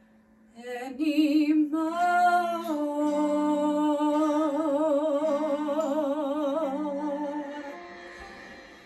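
A woman singing one long held note with a wide vibrato over sustained backing chords, the song's closing note. It enters about half a second in, slides up, holds, and fades away near the end.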